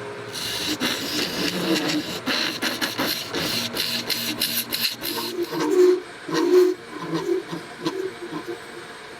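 An epoxy resin blank being turned on a lathe, the tool scraping away the casting ridges with a hissy, scratchy noise. About five seconds in it thins out to softer, intermittent scraping.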